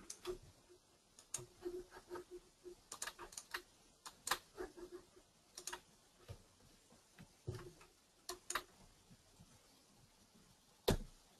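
Faint, irregular clicks and taps at a computer's keyboard and mouse, pressed over and over while trying to get a stuck presentation slide to advance, with a louder click near the end.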